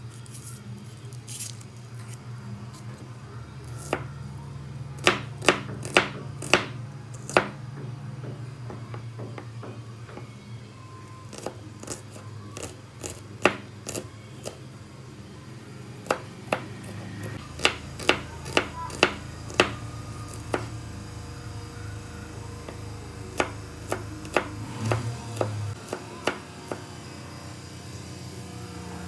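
Chef's knife striking a bamboo cutting board while slicing and mincing a shallot: sharp single chops in short irregular runs, with pauses between.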